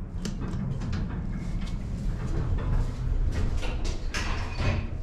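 Passenger elevator's sliding doors closing, with clicks and knocks over a steady low rumble from the car, and a louder rushing shuffle near the end.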